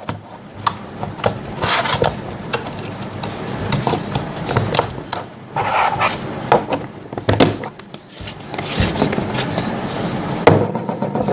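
Plastic slime containers handled: many short clicks and knocks, with stretches of rubbing and scraping.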